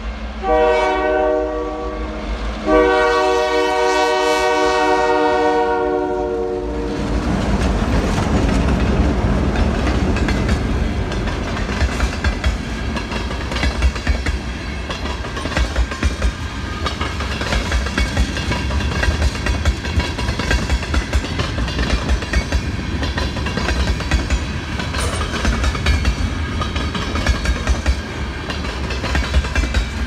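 Diesel freight locomotive air horn sounding a short blast, then a long one. About seven seconds in, the lead EMD GP38-2 units pass, and the freight cars follow with wheels clicking over the rails in a steady, repeating rhythm.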